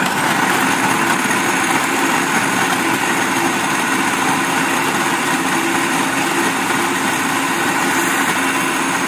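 Kenwood food processor motor running steadily, its blade chopping bread slices and garlic cloves into crumbs.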